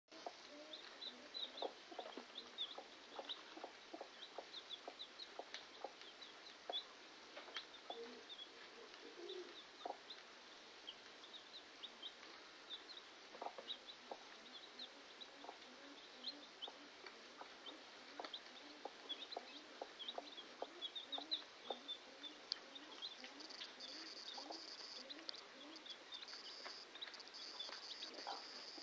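Day-old Scots Grey chicks peeping in many short, high chirps while the broody Scots Grey hen gives faint low clucks. A steady high pulsing tone comes in about three-quarters of the way through.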